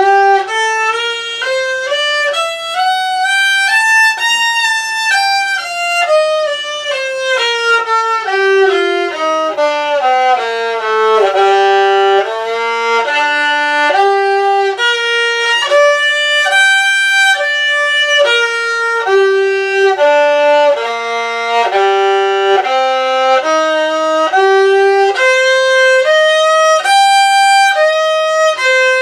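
Solo violin playing G minor scale exercises in first position, bowed one note at a time: a run climbing stepwise and falling back to the lowest note, then shorter patterns moving up and down between notes of the scale.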